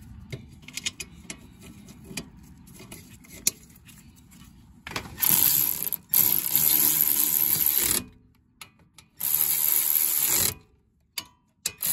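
A cordless power tool spinning a socket to run down the bolts that fasten the upper ball joint to the upper control arm. After a few seconds of faint clicking it runs in three bursts: a long one about five seconds in, a short one near nine seconds, and another starting just before the end.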